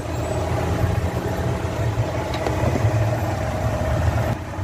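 Car engine idling steadily with the hood open and the air conditioning switched on at full.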